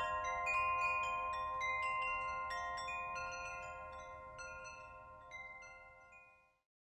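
Chimes ringing, with many light scattered strikes over long sustained tones; the ringing gradually fades and stops about six and a half seconds in.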